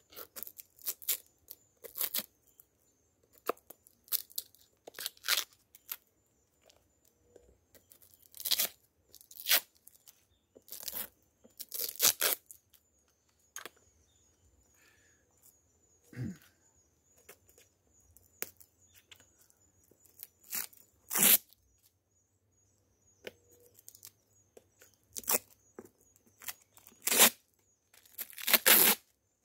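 Protective covering being torn off a homemade jataí bee bait box by hand, in irregular bursts of tearing, a few much louder than the rest.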